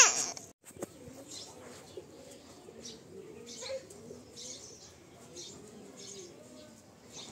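Faint birds calling in the background, with low wavering cooing calls and short high chirps, after a toddler's crying breaks off right at the start.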